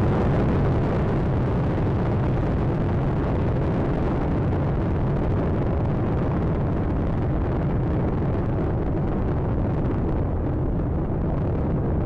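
Space Shuttle Atlantis in ascent: the steady, loud rumble of its solid rocket boosters and three main engines, deep and dense, with the hiss on top thinning slightly near the end.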